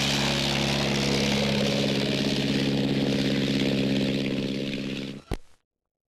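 Piston engines of a twin-engine light aircraft running in a steady drone. The sound cuts off suddenly with a click a little after five seconds in.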